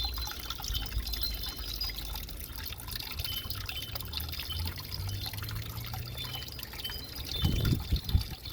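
Water trickling, with many short, high chirp-like blips scattered through it and a brief low sound near the end.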